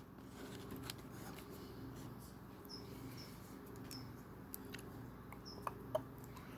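Faint clicks and taps of small LEGO plastic pieces being handled and pressed together, over a low steady hum, with a few brief high chirps.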